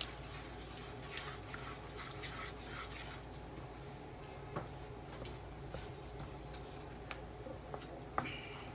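Wooden spatula stirring a wet, sugary semolina mixture in a pan, with soft scraping and an occasional light knock against the pan. A steady low hum runs underneath.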